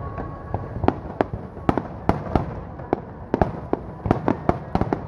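Aerial firework shells bursting in a rapid, irregular string of sharp bangs, about three or four a second, over a continuous rumble of further bursts.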